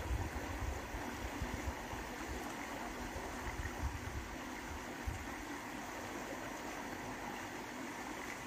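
Canal water rushing steadily, with irregular low rumbles.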